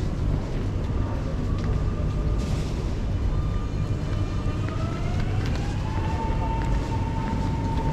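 Singapore MRT train running between stations, heard from inside the carriage: a steady low rumble, with a whine that rises in pitch from about four seconds in and then holds steady.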